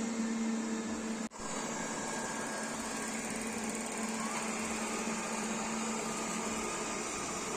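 Xiaomi Mi Robot Vacuum-Mop Essential running on its cleaning run: a steady motor and suction hum with a low drone. It cuts out for an instant about a second in, then carries on unchanged.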